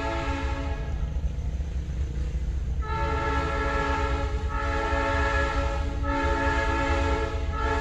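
Train horn blowing a chord in long blasts: one blast fades about a second in, and after a short pause the horn sounds again and holds, with brief dips, over a steady low rumble.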